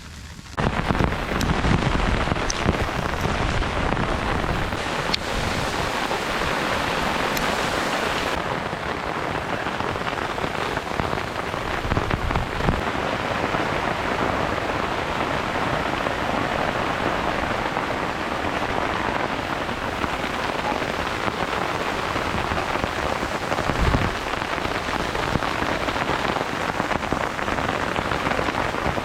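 Heavy rain pouring down in a dense, steady hiss that starts abruptly, with a single low thump late on.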